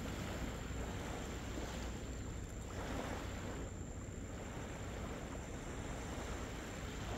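Steady wind buffeting the microphone over the wash of the sea on a beach, swelling briefly about three seconds in.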